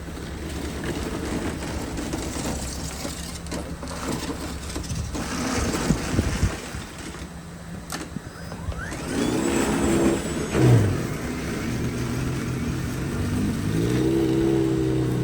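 An engine running with a steady low hum, then rising in pitch twice as it revs up or accelerates, over a rushing rumble of wind and road noise.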